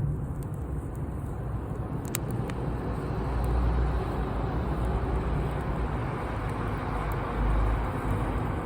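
Wood fire burning: a steady rush of flames over a low rumble, with a few sharp crackles about two seconds in.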